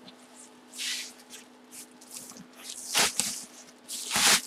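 Bubble wrap and a white packing sheet rustling and crinkling as hands handle them, in a few short bursts, the loudest near the end.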